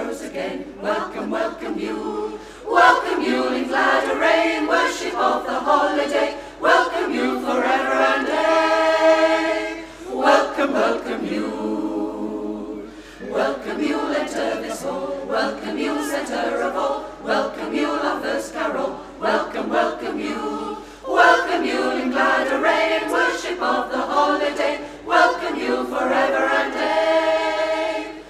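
Women's choir singing a cappella, without piano or any accompaniment, in sung phrases with brief breaks between them.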